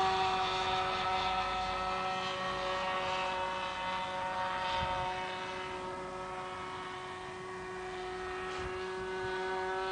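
Radio-controlled model airplane in flight, its motor and propeller giving a steady, even-pitched drone that fades a little and then rises again as the plane circles.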